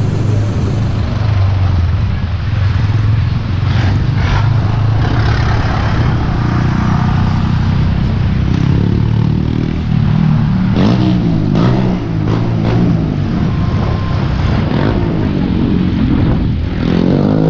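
Busy city street traffic heard from a moving bicycle: bus, car and motorcycle engines running close by, over a steady low rumble. A few engines rise and fall in pitch as they pass, around the middle and near the end.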